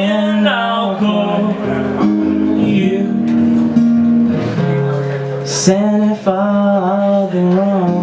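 Live acoustic guitar strummed, with a man singing over it.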